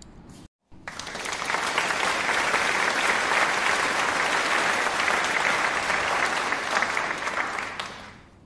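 Crowd applause that starts about a second in, holds steady as dense clapping, then fades out near the end.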